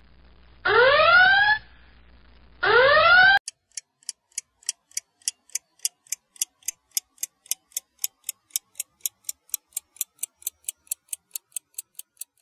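A whooping alarm siren sounds twice, each a rising wail about a second long. A clock then ticks steadily, about four ticks a second.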